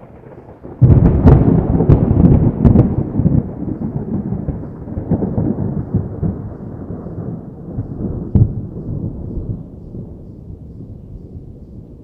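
A thunderclap: a low rumble builds into a sudden loud crack about a second in, followed by a long rolling rumble that slowly fades, with another sharp crack after about eight seconds.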